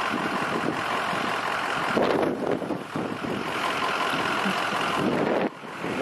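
Large vehicle's engine idling close by with a steady rumble; it briefly drops away about five and a half seconds in.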